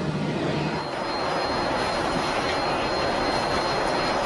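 Steady jet noise of a Boeing 747-8 in flight, from its GEnx engines and airflow. A low hum stops about a second in, and a faint high whine comes in soon after.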